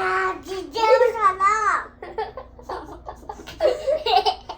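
A young girl's voice: a drawn-out, sing-song vocalization with laughter in the first two seconds, then short bits of indistinct chatter.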